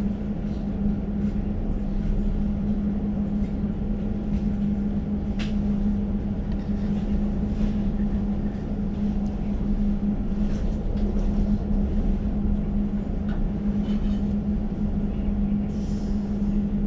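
Interior running noise of a moving Elizabeth line Class 345 train: steady wheel-and-track rumble under a constant low hum, with faint scattered clicks and rattles.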